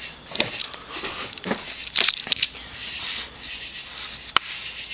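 Scattered light clicks and faint rustling, with a few sharper clicks, one standing out about four and a half seconds in.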